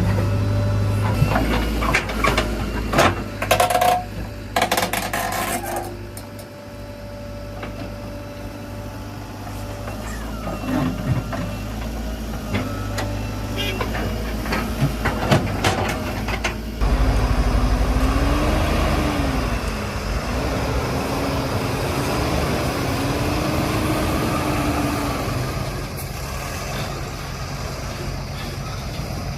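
JCB 3DX backhoe loader's diesel engine running steadily under load, with a cluster of sharp metal clanks and knocks in the first few seconds. A wavering whine rises and falls about midway through.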